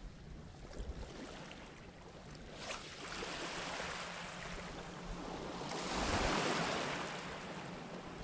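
Wind on the microphone over the wash of the sea on the shore, a steady rushing that swells twice, loudest about six seconds in.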